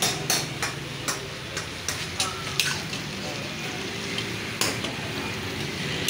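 Metal utensils stirring and knocking against a steel karahi as meat fries and sizzles over a gas flame. Sharp metal clacks come in an irregular run during the first half and once more later, over a steady sizzle.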